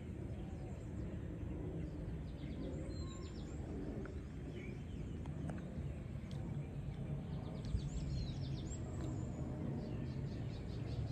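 Outdoor rural ambience: scattered high, quick bird chirps and short trills over a steady low rumble, with a burst of rapid chirping near the end.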